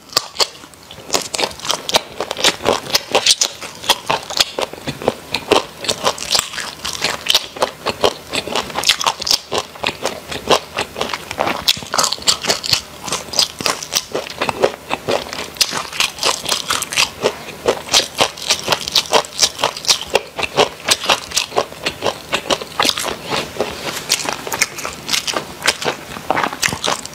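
Close-miked crunching and chewing of crispy fried food: a rapid, irregular run of sharp crisp cracks as each mouthful is bitten and chewed.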